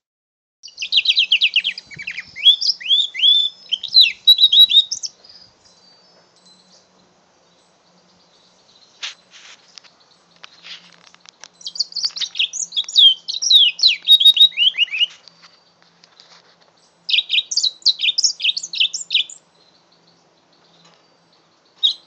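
A young mule canary singing: three phrases of quick, repeated falling chirps, each a few seconds long, with pauses between them.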